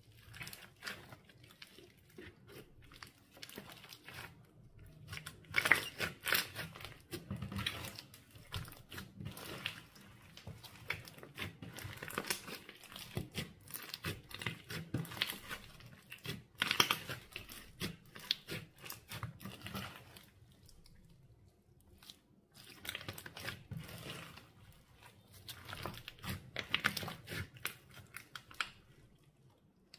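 Clear slime being squished and stretched by hand, giving bursts of sticky crackling and popping clicks with a few short pauses.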